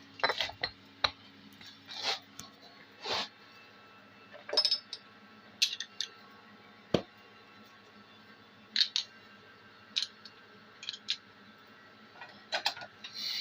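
A small plastic injection moulding machine running a moulding cycle: scattered metallic clicks and clinks with several short hisses, and a sharp knock about seven seconds in. A faint low hum stops about three seconds in.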